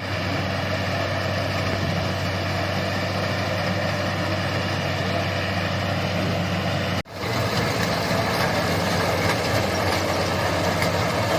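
Rice combine harvester engine running steadily. The sound drops out for an instant about seven seconds in, then continues.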